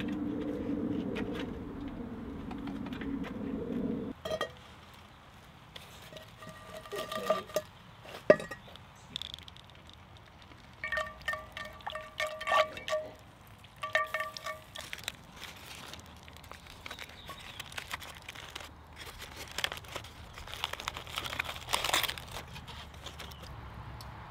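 A steady low sound for the first four seconds that cuts off suddenly, then a metal spoon clinking against a cast-iron skillet in several clusters of ringing taps, and near the end aluminium foil crinkling as the foil parcel is opened.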